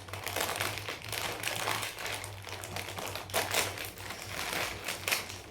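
Crunchy food being chewed: a quick, irregular run of crisp crackles and crunches.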